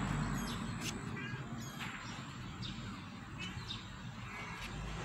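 Birds chirping: scattered short, high chirps and quick falling calls over a steady outdoor background hiss.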